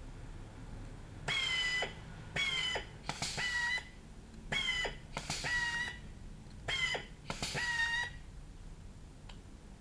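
SZENT 550 automatic hydraulic blind-rivet gun cycling: seven short high-pitched whines, each starting with a click, several coming in close pairs, over about seven seconds.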